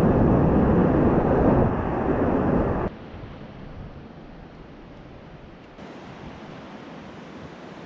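Whitewater rapids rushing loudly around a kayak, cutting off abruptly about three seconds in to a much quieter, steady rush of moving water.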